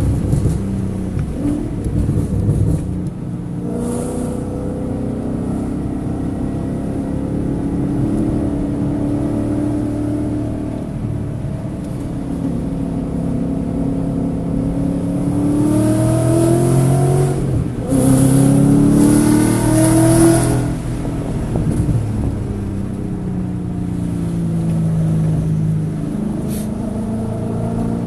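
Car engine under hard acceleration on a race track, its pitch climbing, breaking off at a gear change about eighteen seconds in, climbing again, then falling as it eases off. The engine is suffering misfires on cylinders 1, 3 and 4, enough to make the check engine light blink.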